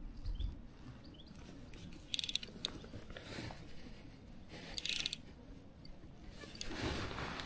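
Fishing reel clicking in two short rapid bursts, about two seconds in and again near five seconds, while a hooked sea trout is being played on a light fly rod; a low rumble of wind runs underneath.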